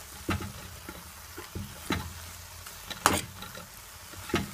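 Corned beef frying in hot oil, sizzling softly as it is stirred. The stirring utensil knocks against the cooking vessel four times, loudest about three seconds in.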